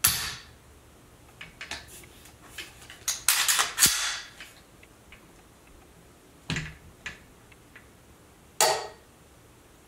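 Sig Sauer MPX's Timney single-stage trigger being dry-fired and reset: a series of sharp metallic clicks spread over several seconds, with a dense cluster of clicks about three to four seconds in.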